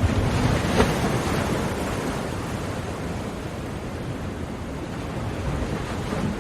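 Sea surf: a wave breaks about a second in, then the water washes and slowly fades before building again near the end.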